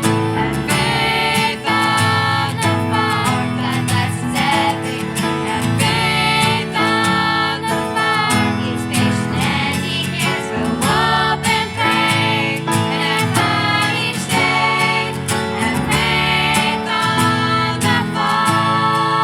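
A song with singing over plucked and strummed acoustic guitar, at a steady beat.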